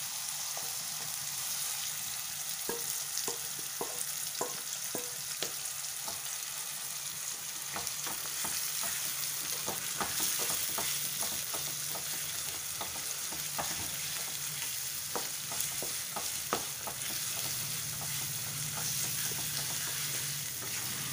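Marinated chicken pieces sizzling in hot oil in a nonstick pan, with a wooden spatula stirring them and knocking and scraping against the pan in many short clicks.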